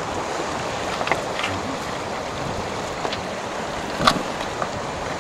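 Steady rush of the Clarence River flowing past a stony bank. A few sharp knocks and clicks stand out, and the loudest comes about four seconds in.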